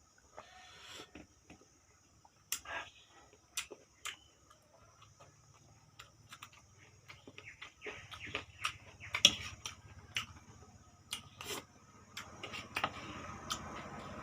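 Close-up eating sounds: chewing pork salad, with many short irregular wet clicks and smacks of the mouth, growing busier and louder in the second half.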